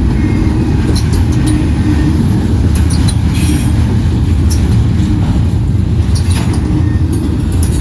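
Intermodal freight train cars rolling past as the train slows: a loud, steady low rumble of wheels on rail, broken by irregular clicks and clanks.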